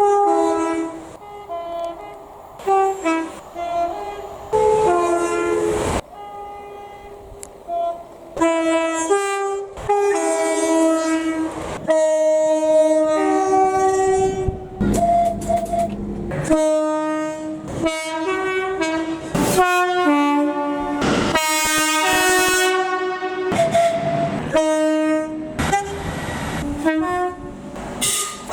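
Train horn sounded as a tune: a long run of short blasts jumping between several different pitches, with brief gaps between phrases.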